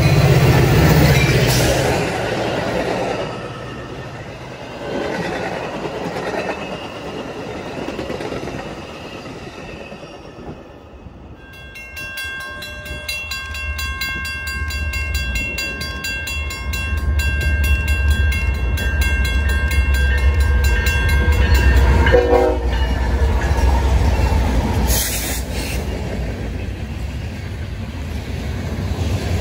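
A Metra commuter train's diesel locomotive passes at speed with a low engine drone. Then an approaching freight train sounds its multi-tone horn in one long blast of about ten seconds. Its locomotives pass with a deep rumble, and freight cars follow, rolling by.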